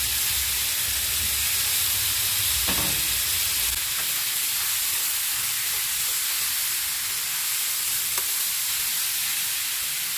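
Liver and freshly added tomatoes sizzling steadily in a hot frying pan, with a couple of faint ticks of the stirring spoon.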